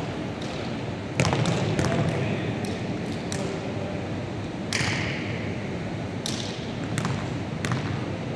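Basketballs bouncing on a hardwood gym floor, a series of sharp thuds that ring in a large echoing hall, loudest about a second in with a quick cluster after it and single bounces later on. Faint voices in the background.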